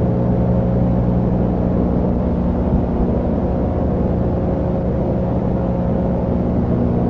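VHS-style sound effect: a steady low electrical hum with a layer of hiss, unchanging throughout.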